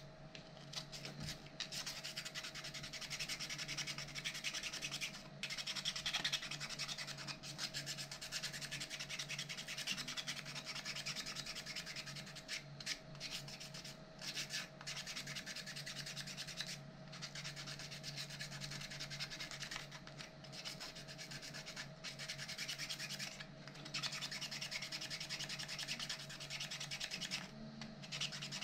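A 3D-printed plastic robot bicep part being smoothed by hand with an abrasive: continuous rubbing strokes that stop briefly every few seconds.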